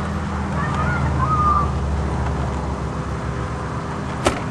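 Steady low hum of an idling vehicle engine. A brief high squeak comes about a second in, and one sharp knock near the end.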